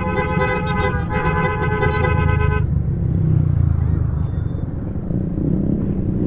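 A vehicle horn sounding in two long blasts with a short break about a second in, stopping a little before halfway. Beneath it runs the steady low rumble of the riding motorcycle's engine and road noise, swelling slightly just after the horn stops.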